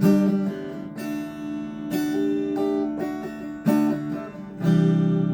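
Legacy Les Paul LP 300 electric guitar on its neck pickup with a clean tone, strumming chords: a new chord about every second or two, the last one, struck about four and a half seconds in, left ringing.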